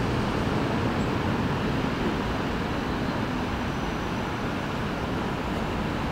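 Steady low rumble of outdoor background noise, with no clear calls from the goslings.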